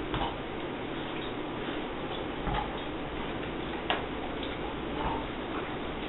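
A handful of light, irregular clicks and knocks over steady background hiss: a dog nosing a red rubber Kong Genius Leo treat toy around on carpet, the kibble inside rattling and the toy tapping the floor.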